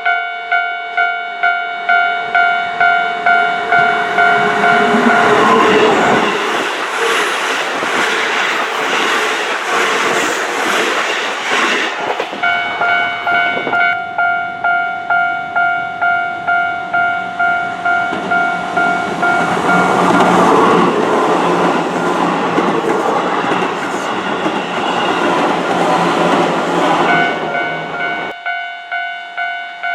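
Japanese level-crossing warning bell dinging steadily, about twice a second. Keihan electric trains pass over the crossing twice, about five seconds in and again from about fourteen seconds until near the end, their wheels and running noise drowning the bell.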